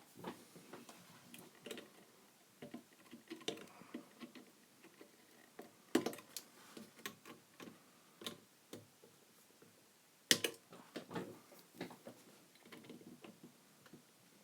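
Wire cutters clipping the leads of old capacitors inside a receiver chassis: scattered small clicks and handling noises, with two sharper snaps about six and ten seconds in.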